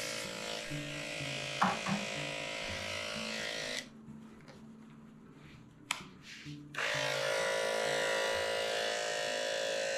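Electric dog-grooming clippers running with a steady buzz, switched off about four seconds in and switched back on about three seconds later, with a single click during the pause. Faint background music underneath.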